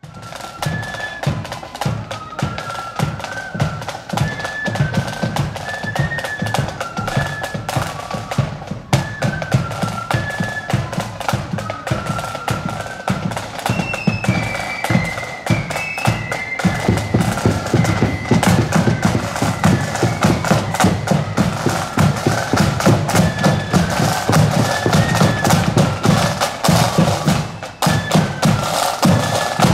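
Marching flute band playing a tune in unison over snare and bass drums, growing louder in the second half.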